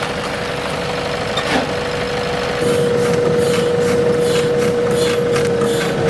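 Nissan Atleon light truck's diesel engine running at a steady idle with a constant whine. About two and a half seconds in it becomes louder and closer, as heard in the cab by the pedals, and the whine dips slightly in pitch near the end.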